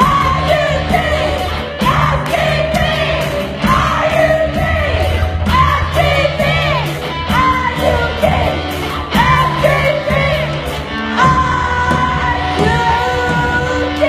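Live rock band playing: a woman sings over a steady drum beat, bass, electric guitar and keyboard.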